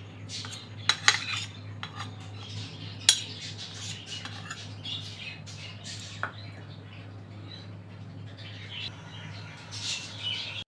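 A spoon clinks against a ceramic bowl and a steel kadai as ginger-garlic paste is scraped into the pan: a few sharp, separate clinks over a low steady hum. Near the end comes a short hissing splash as water goes into the pan.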